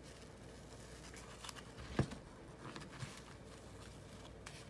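Soft rustling of grosgrain ribbon and faint clicks as the gathered layers of a bow are hand-stitched with needle and thread, with one sharper click about two seconds in.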